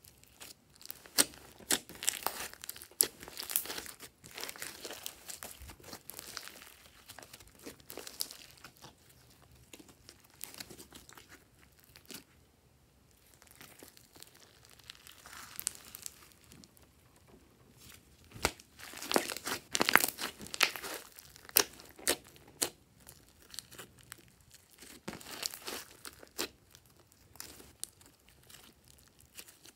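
Hands squeezing, poking and stretching a large glossy slime: sticky, wet crackling and clicking in irregular clusters, quieter for a couple of seconds around the middle.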